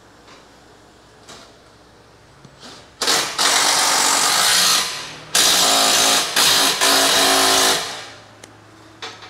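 A shop power tool runs loudly in two bursts of about two seconds each, the second broken by two short stops.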